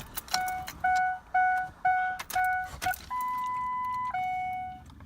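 Dashboard warning chime in a 2003 Ford F-350's cab sounding six quick beeps about two a second, then a steady higher tone for about a second, then longer beeps back at the lower pitch, as the key goes into the ignition and is turned on. A few sharp clicks near the start.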